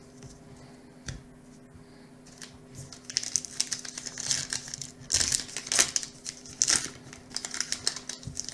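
Wrapper of a 2019 Topps Heritage High Number baseball card pack crinkling and tearing as it is pulled open by hand, starting about three seconds in, with the sharpest crackles around the middle.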